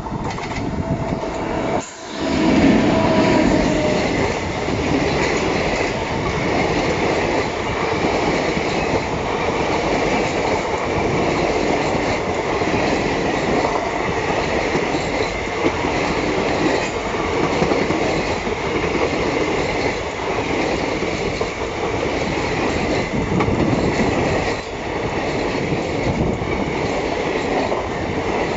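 Konark Express passenger train running on the rails, its wheels clattering over the rail joints in a steady clickety-clack, with a brief drop in level about two seconds in.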